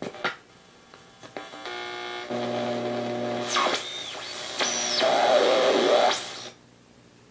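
Armstrong regenerative radio receiver fitted with a transistorised X99 tube, playing its audio output: two sharp clicks, then hiss and static with steady buzzing tones and whistles that glide up and down as it is tuned, cutting off suddenly near the end.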